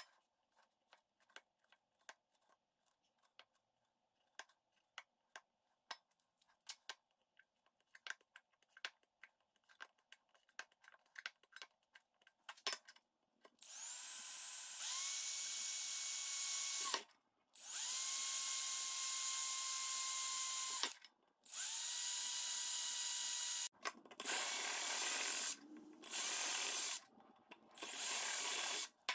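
Cordless drill drilling holes through a thin metal paint can: six runs, each spinning up with a rising whine and then holding steady, with short pauses between holes. They follow about thirteen seconds of light scattered ticks and taps.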